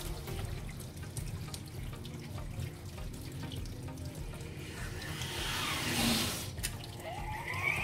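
Tap water pouring onto the lid of a stainless steel pressure cooker and splashing into a stainless steel sink, cooling the cooker so that its pressure drops before the lid is opened. The rush of water grows louder for a moment about six seconds in.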